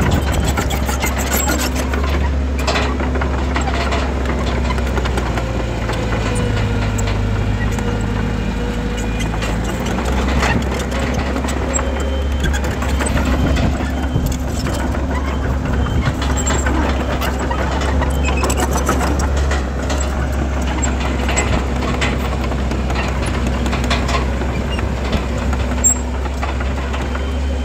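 Heavy earthmoving machinery's diesel engine running steadily, with frequent metallic clanks. Its note shifts for several seconds around the middle.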